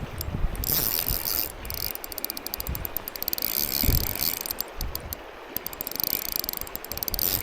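Fishing reel ratcheting in runs of rapid clicks, broken by short pauses, while a hooked steelhead is fought on light line.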